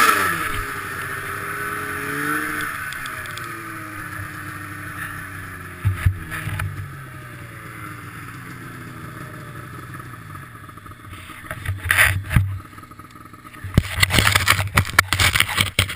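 Snowmobile engine dropping sharply from high revs as the sled slows in deep powder, then running at low revs and fading. A few thumps come about six seconds in, with loud bursts of rough noise around twelve seconds and again in the last two seconds.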